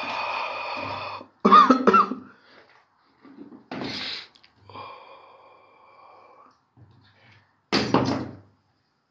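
A man coughing and breathing hard, in three or four short loud bursts, about a second and a half in, near four seconds and near eight seconds. Between them a faint, steady, whistle-like tone.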